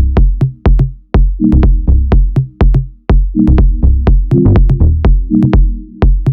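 Electronic background music with a steady drum-machine beat and a deep bass line.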